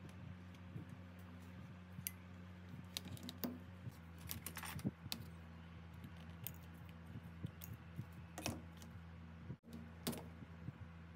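Light clicks and taps of small tools and phone parts being handled at a repair bench, coming irregularly and thickest in the middle, over a steady low hum.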